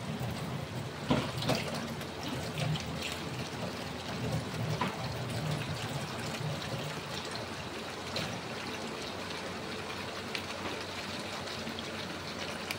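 Chicken afritada in tomato sauce simmering in a wok, a steady bubbling sizzle, with a couple of sharp knocks about a second in. Near the end tomato sauce is poured into the pan.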